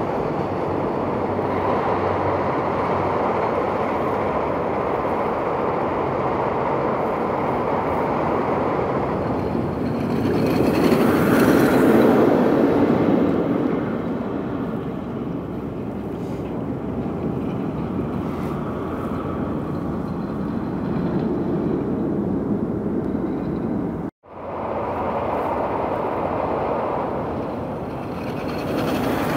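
Steel roller coaster's new Sky Rocket II trains running on test runs: a continuous rumble of wheels on steel track that swells to its loudest about 11 to 12 seconds in as a train passes nearby, then eases. The sound cuts out for an instant about 24 seconds in.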